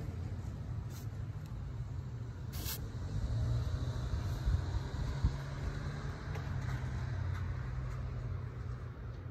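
Road traffic rumbling steadily, with a single sharp click about two and a half seconds in.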